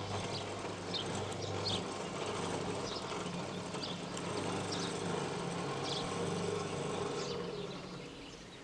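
Electric drive motors of a railway level-crossing barrier humming steadily as the booms lower, stopping about seven seconds in once they are down. Birds chirp faintly over the hum.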